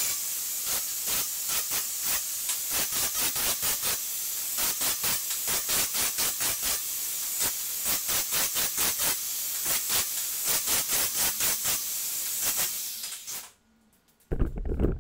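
Angle grinder with a 50-grit flap disc grinding welds smooth on steel square tubing, a steady hiss that pulses in a quick rhythm. The grinding stops about 13 seconds in, and a loud low rumble follows near the end.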